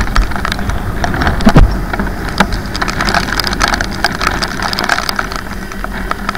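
Heavy rain striking the camera and rider in many sharp, irregular taps, over the steady low running of a motorcycle and the noise of wet road.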